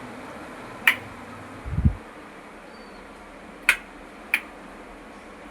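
Three sharp clicks or taps, one about a second in and two close together near the four-second mark, with a short low thump between them, over a steady faint hiss.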